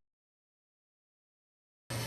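Silence: a complete dropout of sound at an edit, with music coming back in just at the very end.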